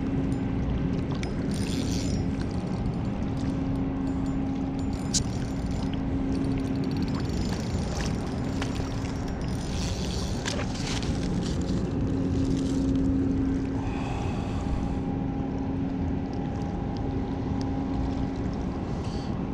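Steady mechanical hum holding one pitch over a low rumble, with a few light clicks scattered through it.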